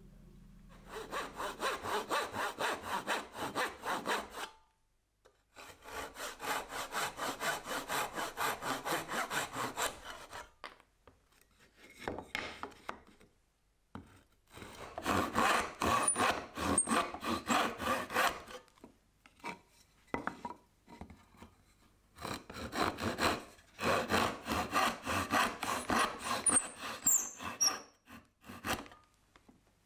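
Hand backsaw cutting through small pieces of wood in several runs of quick, even push-pull strokes, with short pauses between the runs.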